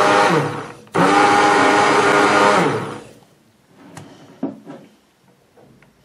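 Hand-held immersion blender whirring in a bowl of soap oils, mixing in white oxide. Its motor winds down and briefly cuts out about a second in, starts again, then winds down and stops about halfway through. A few light knocks follow.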